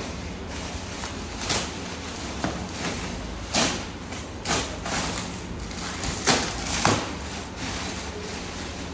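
Bubble wrap and plastic sheeting crinkling and rustling in short bursts as they are pulled and handled around a mesh chair. The loudest bursts come about six to seven seconds in, over a steady low hum.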